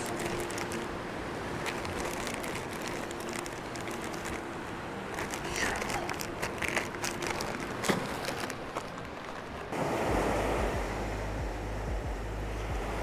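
Surf breaking on the beach, with crinkling and clicks from a plastic zip bag being handled through the middle. Near the end, wind buffets the microphone with a low rumble.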